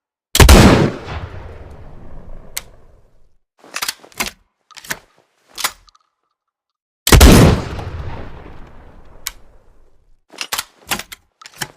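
Single-shot shotgun fired twice, about seven seconds apart; each loud shot trails off in a long echo. Sharp metallic clicks come between the shots and after the second one, typical of the gun's action being handled.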